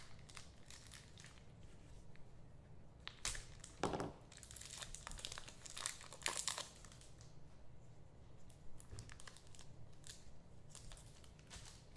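Trading card pack wrappers crinkling and tearing by hand in short, irregular bursts as packs are opened.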